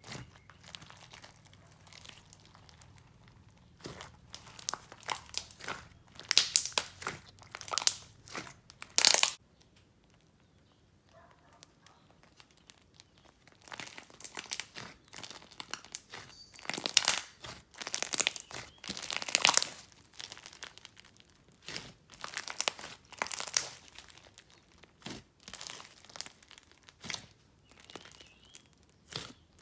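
Thick clay slime mixed with polystyrene foam beads being squished and stretched by hand, giving irregular bursts of crackling and popping, with a pause of a few seconds about a third of the way in.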